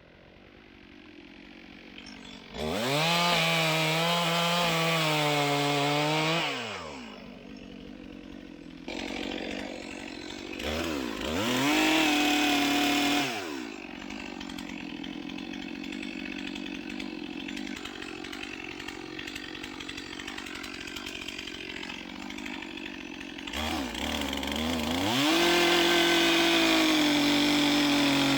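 Gas chainsaw revved to full throttle three times, each for a few seconds, and falling back to idle in between.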